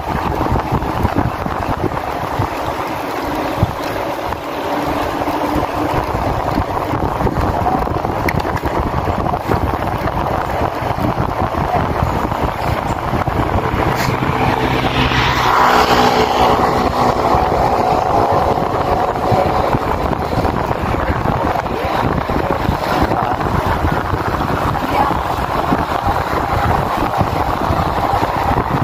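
Steady wind rush over the microphone of a bicycle-mounted camera while riding a road bike at speed. A louder pitched hum swells and fades about halfway through.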